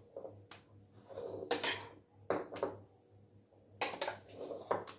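A metal spoon knocking and scraping against a bowl while whipped cream is scooped out: a handful of short clinks and scrapes with short pauses between them.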